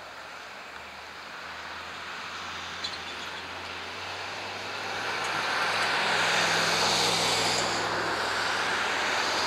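Road traffic crossing: cars and a van driving past with engine and tyre noise. The noise builds about halfway through as vehicles pass close by.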